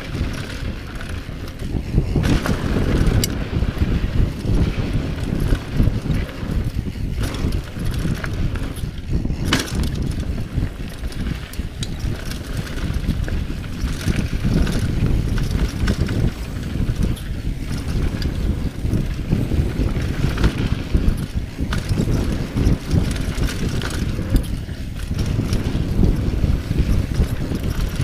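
Mountain bike descending a dirt singletrack: wind buffeting the camera microphone over the rumble of tyres on the trail, with occasional sharp knocks from the bike over bumps.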